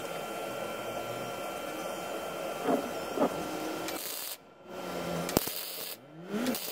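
MIG welder striking short tack welds on steel: two stretches of dense arc hiss and crackle, the first starting about four and a half seconds in, the second near the end, each broken off by a brief pause. Before them only a steady low background hum while the parts are held in place.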